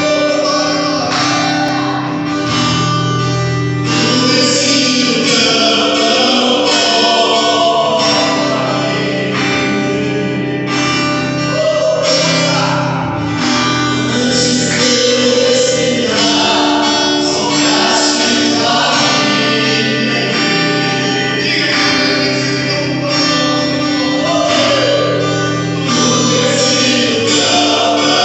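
Gospel worship music with voices singing over instrumental backing.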